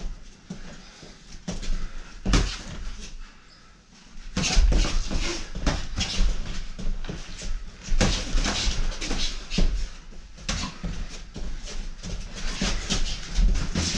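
Boxing sparring: padded gloves landing on gloves, headgear and body as short thuds and slaps, mixed with shoes scuffing and stepping on rubber floor mats. The exchange gets busier and louder from about four and a half seconds in.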